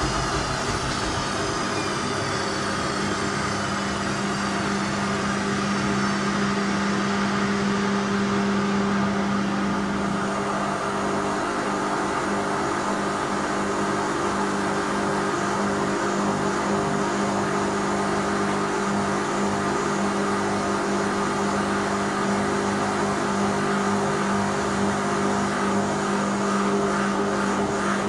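Whirlpool front-loading washing machine running with a steady motor hum, on a machine that will not spin. A high whine falls away over the first few seconds.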